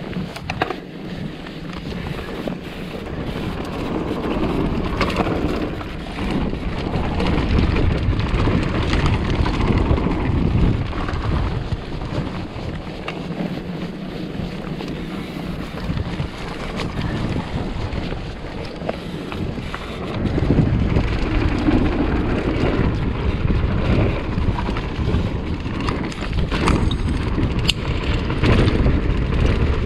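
Wind buffeting the microphone and tyre rumble from a mountain bike riding down a dirt trail, swelling and easing with speed, with a few sharp clicks and rattles.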